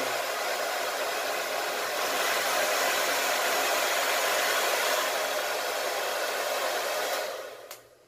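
Kiki Super Turbo 2500-watt hair dryer blowing steadily with its heater switched on, getting a little louder about two seconds in. Near the end it is switched off and the airflow dies away.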